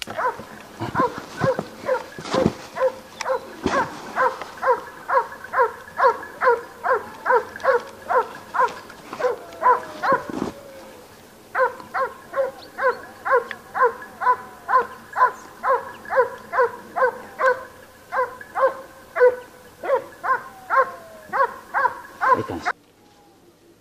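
Hunting hound barking in a steady, even rhythm of about two barks a second, on the trail of a wild boar. The barking breaks off for about a second near the middle, then resumes and stops abruptly near the end.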